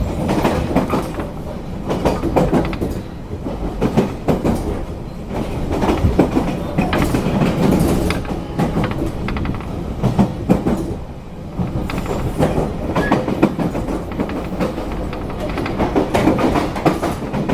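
Running noise inside a JR Kyushu 813-series electric train's motor car: a steady rumble with wheels clicking over rail joints and a little wheel squeal, as the train slows for a station stop.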